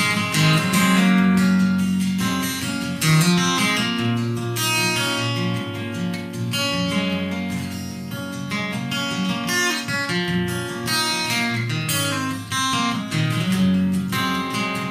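Acoustic guitar strummed in a steady rhythm, the instrumental intro of a song before the vocal comes in.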